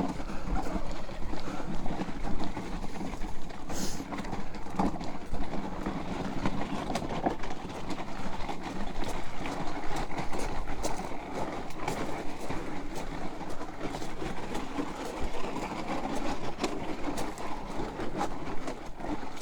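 A loaded garden cart being pulled, its wheels rolling over rough ground with a continuous rattle and clatter.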